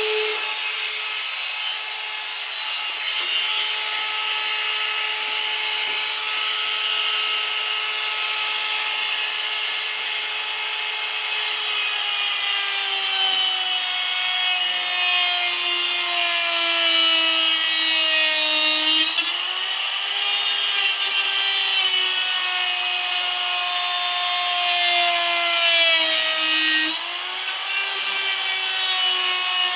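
Electric die grinder running with a rotary burr carving into wood: a steady high whine over a gritty grinding hiss. The pitch slowly sags as the burr bites harder, dips sharply twice in the second half under heavy load and picks back up each time.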